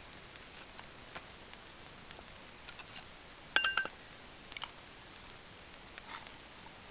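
A short beep, about a third of a second long, a little past halfway, among scattered faint clicks and ticks.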